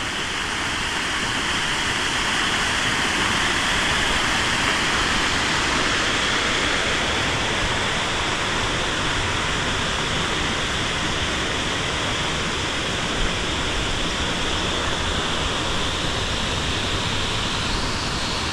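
Steady rush of running water, growing louder over the first few seconds and then holding even.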